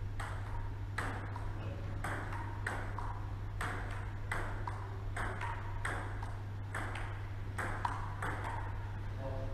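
Table tennis rally: the plastic ball clicking sharply off the paddles and bouncing on the tabletop, about two clicks a second, each with a short ring. A steady low hum runs underneath.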